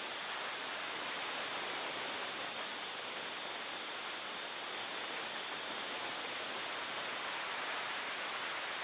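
Steady rushing noise inside a BMW E36 M3 race car's cockpit on track: wind and road noise with no distinct engine note or gear changes.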